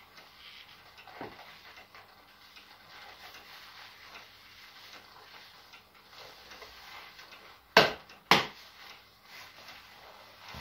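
Faint rustling and creaking of leather clothing and gloves as gloved hands move, broken near the end by two sharp slaps about half a second apart.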